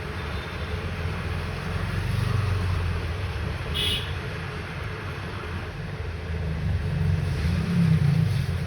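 Hot-air rework station blowing steadily with a low rumble and hiss, heating solder paste to seat a charging connector. There is a brief sharp click about four seconds in.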